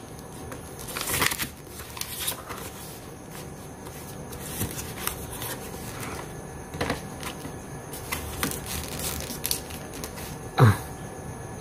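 Paper sheets rustling and crinkling in fits as they are pressed flat and tucked into a plastic tub as a fresh floor lining, with one brief sharp sound near the end.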